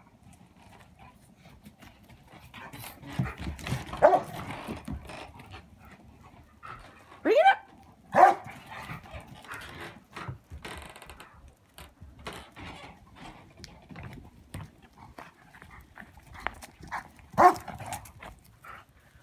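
Dogs at play barking a few times: a sharp bark about four seconds in, two more around seven to eight seconds, the first of them rising in pitch, and one near the end, with scuffling between.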